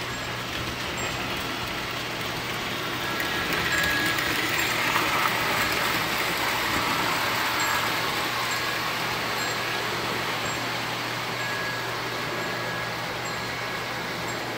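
Vintage Lionel O-gauge electric toy trains running on three-rail metal track: a steady whirring rattle of wheels and motors that swells between about three and eight seconds in as a train passes close by, with a steady low hum underneath.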